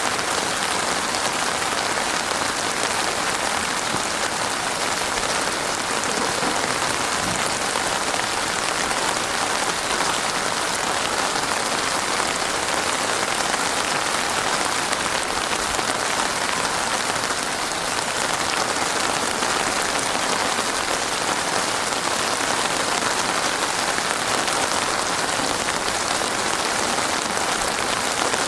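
Heavy rain pouring steadily onto a surface, a dense even hiss of drops.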